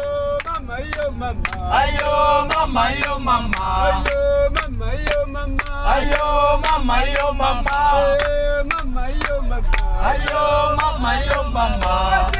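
Background music: a song with a male singing voice over a steady beat and bass, starting at full level right away.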